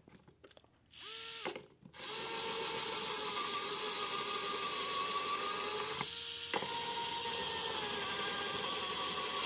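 Vessel 220USB P1 electric screwdriver running at its top 400 rpm setting, turning a self-centering drill bit into plywood to pre-drill screw holes. It runs briefly about a second in, then whines steadily from about two seconds on, with a short stop around six seconds in.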